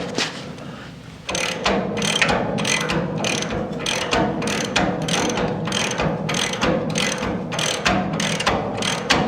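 Hand ratchet wrench clicking in steady back-and-forth strokes, about two a second, tightening a suspension bolt. The clicking stops briefly about a second in, then resumes.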